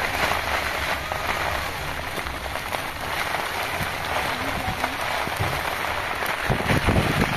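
Steady rain falling on muddy ground and puddles, an even hiss of patter. A low rumble comes in near the end.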